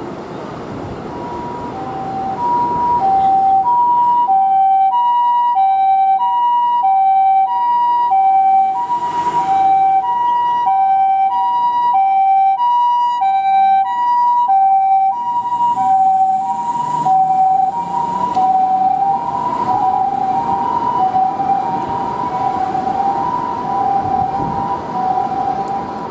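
Japanese ambulance's standard two-tone "pee-poh" electronic siren from an Osaka Siren amplifier, a high and a low tone taking turns at an even pace. It swells up over the first few seconds, then stays loud, and the tones waver slightly in pitch in the second half.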